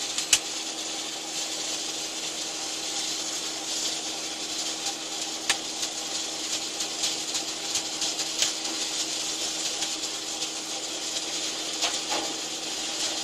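Steady rushing, hissing machine noise with a low hum underneath and a few faint clicks.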